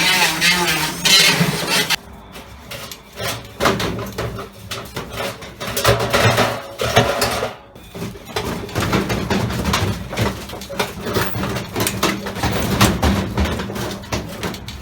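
Washing machine running with heavy objects such as bricks or stones loose in the drum, banging and clattering irregularly over the low hum of the machine.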